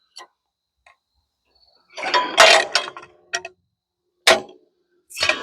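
Metal clanks and knocks from a sawmill's steel log-handling gear being worked: a rattling cluster with a brief ring about two seconds in, then two single sharp knocks.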